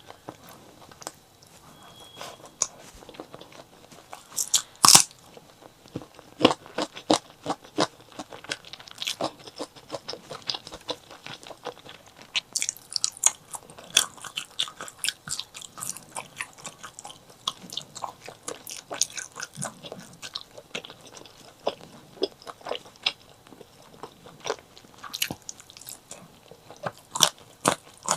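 Close-miked eating sounds of chili and white rice: a steady run of crunchy bites and chewing, with many short crackly snaps and one louder crunch about five seconds in.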